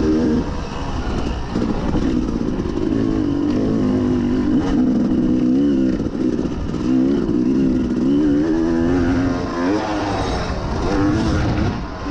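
Yamaha YZ250 two-stroke dirt bike engine, heard from on board, revving up and down as the bike is ridden around a motocross track. Its pitch keeps rising and falling as the rider rolls off for a turn and gets back on the throttle.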